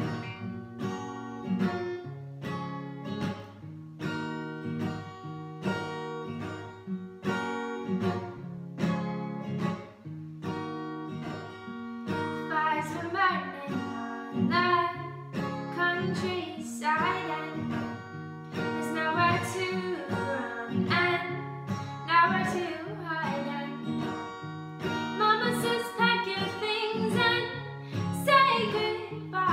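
Acoustic guitar strummed in a steady rhythm. About twelve seconds in, a young woman starts singing over it: a solo indie-folk song with her own guitar accompaniment.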